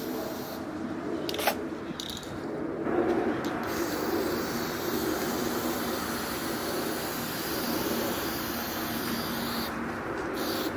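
Aerosol can of metallic copper spray paint spraying: a steady hiss that starts about three seconds in and stops shortly before the end.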